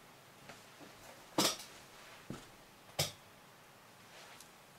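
Two sharp clicks about a second and a half apart, with a few faint taps around them: a small container of golden incense resin being handled as pieces are tipped out into a palm.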